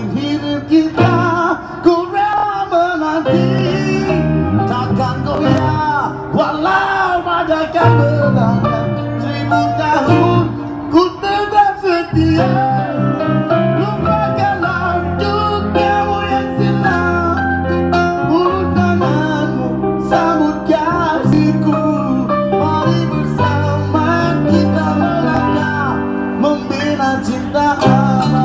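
Live busker band playing a slow Malay pop ballad on acoustic guitar, electric bass and keyboard, with a bending melody line over steady bass notes.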